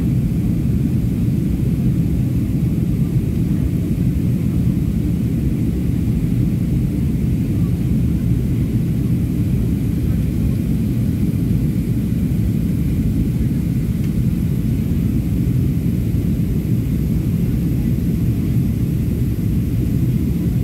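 Jet airliner cabin noise in flight: a steady low rumble of engines and airflow, heard inside the cabin at a window seat.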